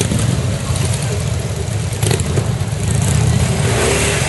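Motorcycle engines running at low revs close by: a steady, pulsing low rumble, with crowd chatter behind it.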